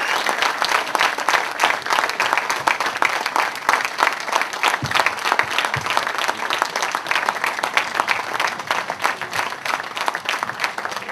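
Audience applauding, many hands clapping steadily, thinning a little near the end.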